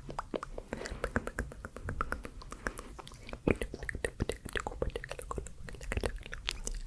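Close-miked ASMR mouth sounds: quick, irregular wet clicks and smacks, several a second.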